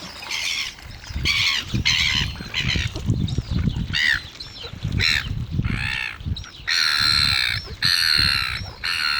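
Flock of red-billed gulls calling with harsh, repeated squawks, many calls overlapping; from about seven seconds in the calls become longer and louder.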